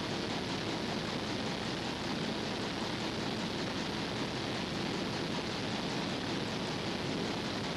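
Steady, even hiss with no distinct taps, knocks or voices.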